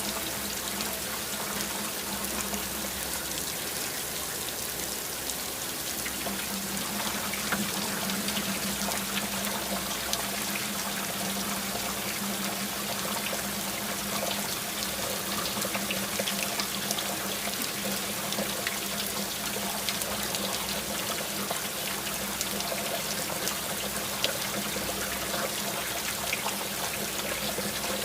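Water trickling and splashing steadily, with many small drips, over a steady low hum.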